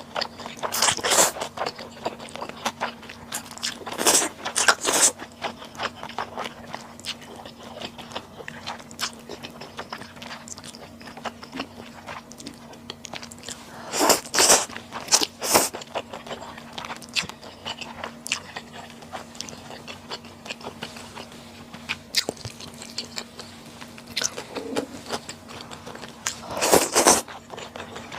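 Close-miked eating sounds: bites and chewing with wet mouth clicks, and a few louder bursts of bites and slurps, about a second in, at four to five seconds, mid-way and near the end.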